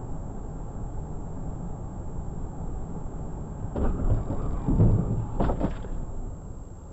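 Steady road and tyre noise inside a car at highway speed, broken by two loud thumps about four and five seconds in.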